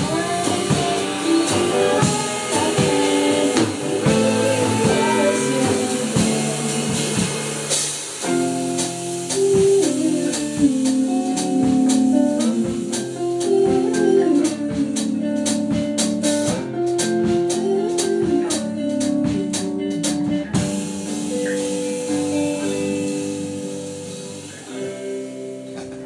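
A small band playing a song together: several instruments holding sustained melody notes over strummed and struck accompaniment, with a run of sharp percussive hits in the middle, dying down near the end.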